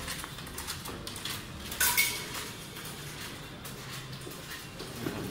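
Light clinking and clattering of hard objects knocking together, with one louder, briefly ringing clink about two seconds in.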